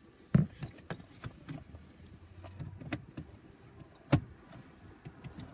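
Small clicks and knocks of a screwdriver and plastic car-interior trim being handled, with two sharper knocks, one about half a second in and one about four seconds in.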